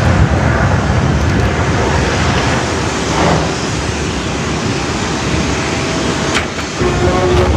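Aircraft engine noise: a steady rumble with a rushing wash over it.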